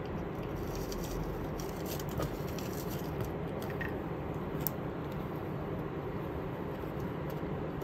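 Soft scratching, gnawing and a few small clicks over a steady hiss as a cat chews on a braided cord toy and paws at a wand toy.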